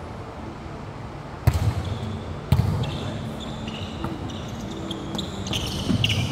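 A volleyball being struck hard twice, about a second apart, each hit echoing around the arena. Lighter ball contacts and the short squeaks of sneakers on the court floor follow during the rally.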